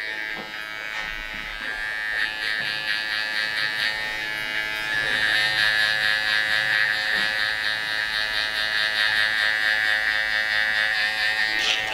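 Electric hair trimmer with a T-shaped blade buzzing steadily as it edges the front hairline at the temple, getting a little louder after the first few seconds.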